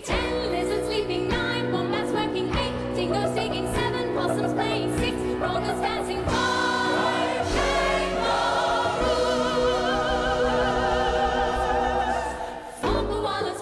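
A woman singing a Christmas carol into a microphone with a large choir and instrumental accompaniment. From about halfway, the choir holds a long note with vibrato. It breaks off about a second before the end, and the music starts again.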